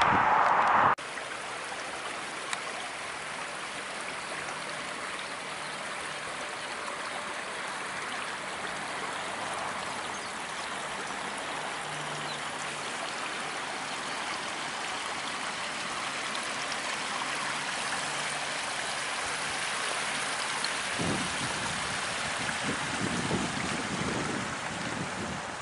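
Small brook trickling and babbling over stones, a steady even rush of water. It opens with about a second of louder road traffic noise that cuts off abruptly, and near the end some irregular low rustling joins the water.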